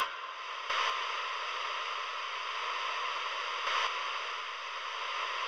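Television static: a steady, even hiss of white noise, swelling briefly twice.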